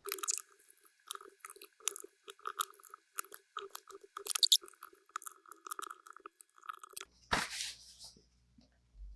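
Many small clicks and short scrapes as the laptop's bottom cover is fitted back on and fastened, with a brief louder rustle near the end.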